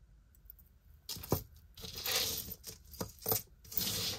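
Jewelry being handled and sorted: a few sharp clicks and clinks of small metal pieces, with rustling in between.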